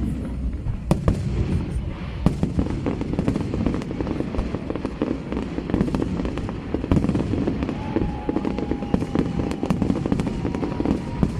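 Fireworks display: a rapid, irregular series of sharp bangs and crackles over a continuous low rumble of bursts. A faint thin whistle sounds in the last few seconds.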